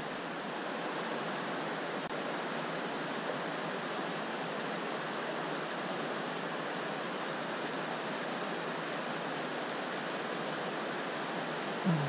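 Mountain stream flowing over rocks, a steady even rush of water.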